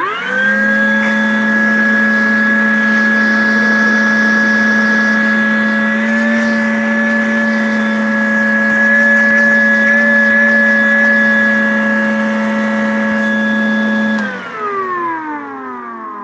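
Makita 18V brushless 2-gallon wet/dry vac (dust extractor) switched on: its motor spins up at once and runs with a steady whine. About 14 seconds in it is switched off and winds down, falling in pitch as it fades.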